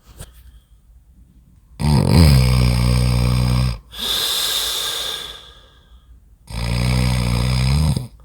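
A man snoring heavily in deep sleep: two long, loud, low snores, the first about two seconds in and the second near the end, with a breathy hiss between them.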